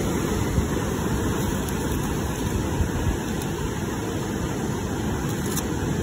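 Steady low rumbling outdoor noise with no clear events, such as wind on the microphone or the nearby surf.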